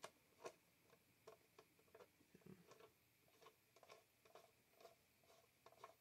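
Faint, irregular clicks and ticks of a screwdriver turning the screws that hold a rotary telephone's metal base plate to its case, with the strongest click about half a second in.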